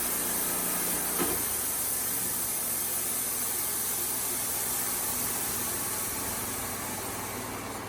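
Wood-Mizer LT35HD sawmill running steadily, its engine humming under a constant hiss of the band blade, with a short click about a second in where the engine note shifts.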